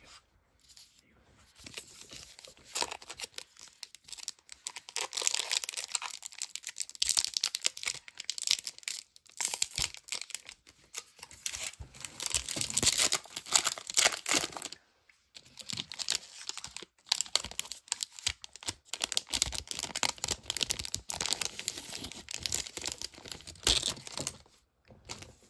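Wrapper of a Topps Holiday baseball card pack crinkling and tearing as it is opened by hand, in long stretches of crackling broken by a couple of short pauses.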